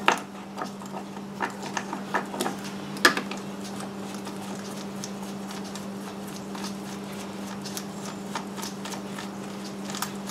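Light clicks and taps of small plastic and metal parts being handled as the outboard's idle adjustment knob is worked free. The taps are loudest near the start and about three seconds in, over a steady low hum.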